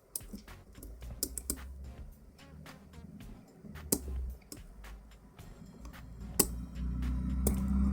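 A hook pick working the pin stacks of a six-pin euro cylinder lock held under tension: irregular small metallic clicks and ticks, with a few sharper clicks about four and six and a half seconds in.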